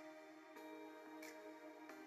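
Quiet background music: held chords with a light tick about every two-thirds of a second.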